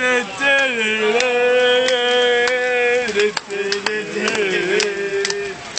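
A man singing long, drawn-out notes: one note held for nearly three seconds, then a slightly lower one that wavers in the middle.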